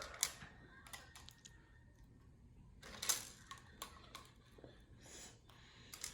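Plastic LEGO pieces clicking and rattling faintly as they are handled and fitted together, in a few scattered clicks and short rustles.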